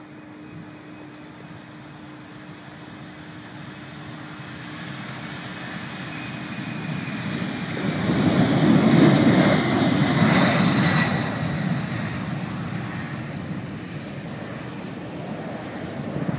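Boeing 767's twin turbofan engines at takeoff thrust during the takeoff run. The jet noise swells steadily, is loudest with a high whine from about eight to eleven seconds in as the aircraft passes, then slowly fades.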